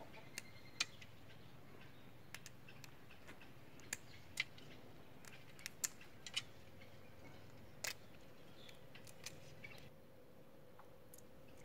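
Scattered sharp clicks and small cracks, irregularly spaced, as the shell of a paddy-field crab is pried and snapped off by hand.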